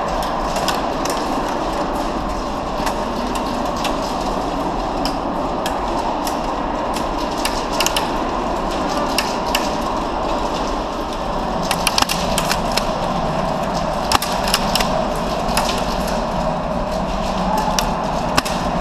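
Scattered sharp cracks and snaps of airsoft gunfire and BBs striking wooden pallets, over a steady background din. The cracks come more often from about twelve seconds in.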